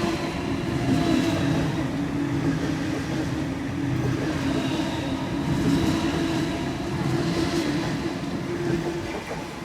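Electric passenger train passing through the station platform: a steady rumble of wheels on rail with a faint held whine, easing off slightly near the end.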